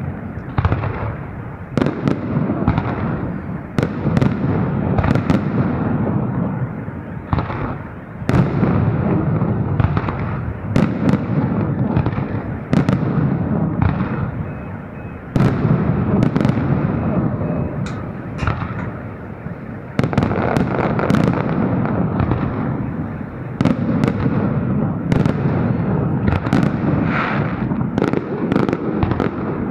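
Fireworks salute: a run of sharp bangs, one every second or two, each trailing into a long low echo.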